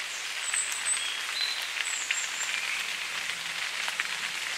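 Steady rain falling on leaves and the forest floor, with individual drops ticking close by. A few short high chirps sound over it.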